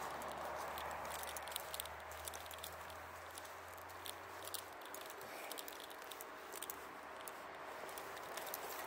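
Quiet roadside: faint noise of a passing car dies away in the first second or two, leaving faint irregular clicking and rustling from footsteps and a handheld camera being carried. A low hum runs under it and cuts off about halfway through.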